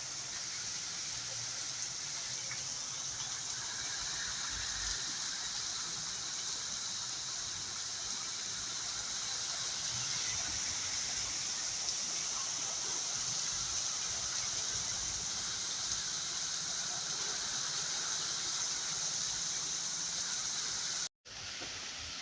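Heavy rain pouring steadily, a dense even hiss that breaks off for a moment near the end.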